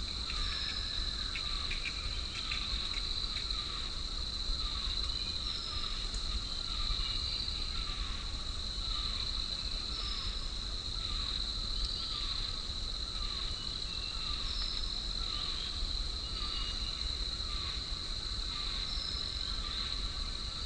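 Forest ambience: a steady, high-pitched insect drone, with short chirps repeating about once a second and occasional higher bird-like notes over it, and a low rumble of wind.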